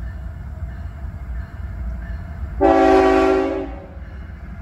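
Approaching diesel freight locomotive's air horn sounding one blast of about a second, midway through, over a steady low rumble.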